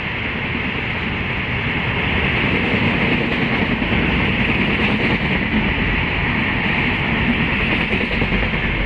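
Passenger train running past on the rails: a steady, unbroken rolling noise of wheels on track.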